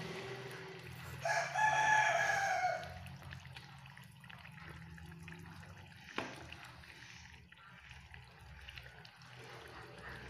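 A rooster crows once, about a second in, a loud call lasting under two seconds that falls slightly at the end. A single sharp knock follows about six seconds in, with soft stirring in a pot of simmering curry underneath.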